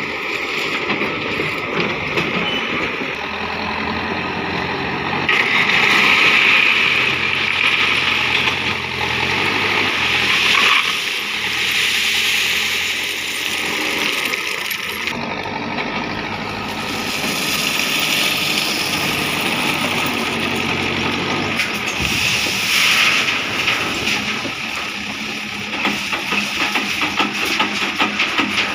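Terex backhoe loader's diesel engine running and revving under hydraulic load as it scoops and lifts gravel ballast, the pitch rising and falling with each bucket move. Near the end gravel rattles as the bucket tips it into a truck body.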